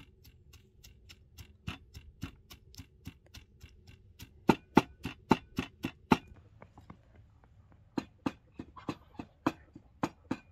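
Knife chopping on a wooden cutting board: a steady run of sharp taps, about three a second. The taps grow louder about four seconds in, stop briefly, then start again.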